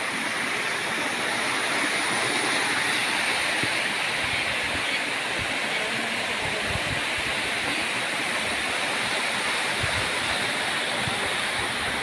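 Small waterfall and the water running out of its rock pool: a steady, even rush of falling and flowing water.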